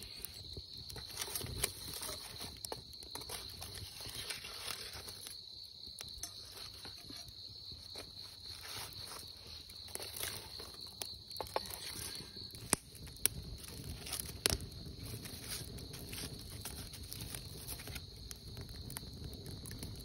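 Wood fire crackling, with sharp scattered pops from the burning logs, over a steady high chirring of insects.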